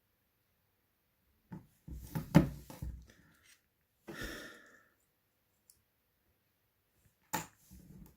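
Small handling noises from working on a phone's internals: a cluster of clicks and knocks about two seconds in, a short rustle around four seconds, and one sharp click near the end.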